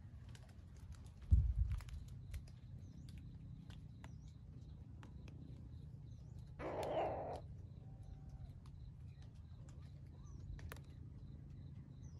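Forest bird ambience: faint high chirps and a faint steady ticking call several times a second. Partway through comes one harsh, rasping call lasting under a second. A dull low thump about a second in is the loudest sound.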